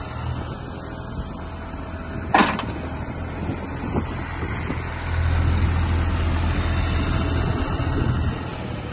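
JCB 8025 ZTS mini excavator's diesel engine running steadily while the upper structure slews round, getting louder about five seconds in. A single sharp knock sounds a little over two seconds in.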